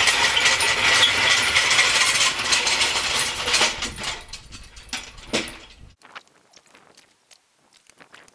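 Stihl chainsaw cutting into oak, a loud dense noise with a faint steady whine. It fades out about four seconds in and is cut off sharply near six seconds, leaving only faint clicks.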